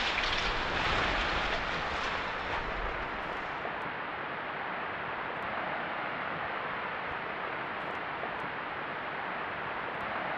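Rumbling noise of a brick chimney collapsing after explosive demolition charges, strongest for the first two to three seconds, then settling into a steady hiss as the dust cloud spreads.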